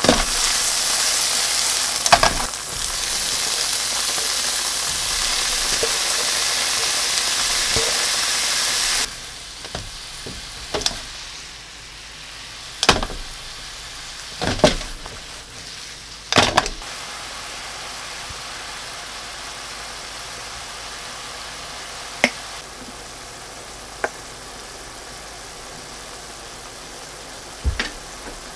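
Tofu and minced garlic sizzling in oil in a nonstick frying pan. About nine seconds in the sizzle drops suddenly to a quieter hiss, and a few sharp knocks and scrapes follow as a spatula stirs shimeji mushrooms through the pan.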